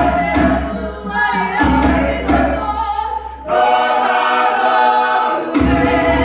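A choir singing unaccompanied in long held chords, the phrases breaking off briefly about every two seconds.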